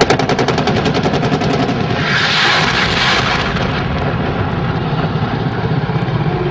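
Combat sounds: a fast crackle of gunfire for about two seconds, then an explosion with a long loud hissing rush, over a steady low rumble.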